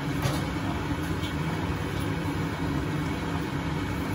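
A steady low mechanical hum, with a few soft scrapes of a spatula stirring curry in a metal kadhai.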